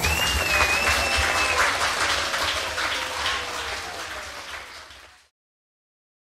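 Audience applause after the end of a Hungarian Gypsy folk music recording, with a high held tone over the first second and a half. The applause fades away and cuts to silence a little over five seconds in.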